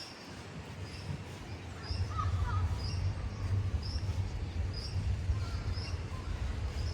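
Birds calling outdoors: short high chirps repeating about twice a second, with a brief lower call about two seconds in, over a steady low city rumble that grows louder about two seconds in.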